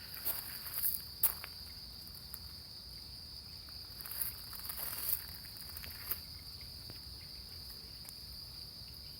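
Insects trilling steadily on one high pitch, with a few scattered short rustles and knocks in the first six seconds.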